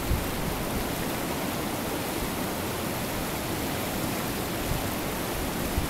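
Steady rushing of fast-flowing floodwater, a swollen lake running high and breaking into white water.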